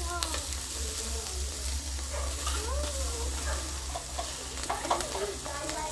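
Lamb ribs and chicken wings sizzling on the grate of a charcoal kettle grill, with a few sharp clicks of metal tongs as the raw ribs are laid on.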